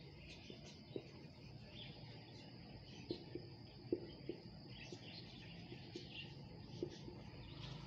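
Quiet room tone with faint, irregular chirping and a few soft taps, the clearest about one, three and four seconds in.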